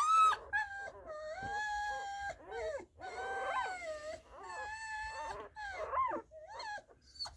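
Two-day-old Pomsky puppies crying: a string of high, drawn-out whining cries, some rising and falling, with two pups sometimes crying at once.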